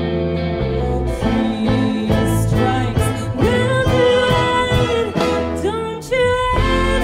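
Live indie-folk band playing: electric guitar, bass, drums, violin, keyboard and trumpet, with a woman singing the lead. The sound drops back briefly about six seconds in, then the full band comes straight back in.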